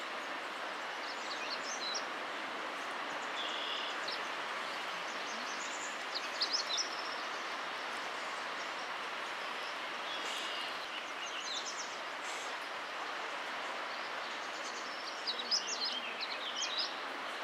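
Several songbirds give short high songs and chirps, loudest about six seconds in and in a cluster near the end, over a steady background noise.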